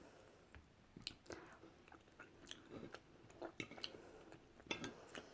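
Faint chewing of a mouthful of food, with scattered soft mouth clicks and smacks.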